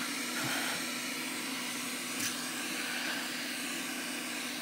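Hot-air rework station's blower running steadily, a hiss with a low hum under it, with a couple of faint taps as aluminium-foil masking is handled.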